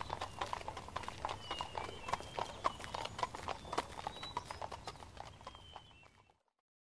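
Horse hooves clip-clopping at a steady walk, a travel sound effect; the hoofbeats grow fainter and stop about six seconds in.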